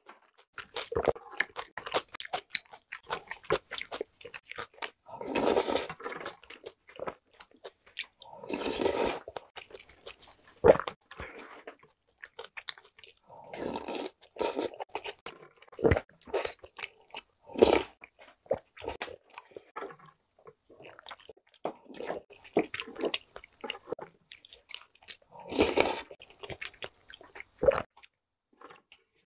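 A person eating spicy soft-tofu soup with chewy jjolmyeon noodles: wet chewing and smacking mouth clicks, broken by several longer slurps of soup from a spoon, each about a second long.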